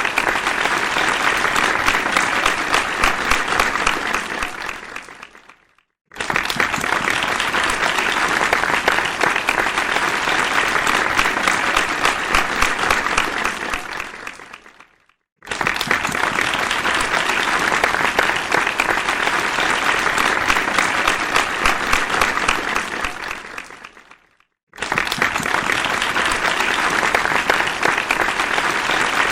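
Crowd applause, a dense patter of many hands clapping. It fades out about every nine seconds into a brief moment of silence, then starts again abruptly at full strength, three times over.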